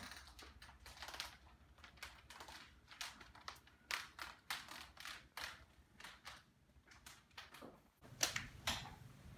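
Irregular clicks and knocks from a shower commode chair being wheeled on its casters across a wooden floor, with footsteps; near the end two sharper knocks about half a second apart.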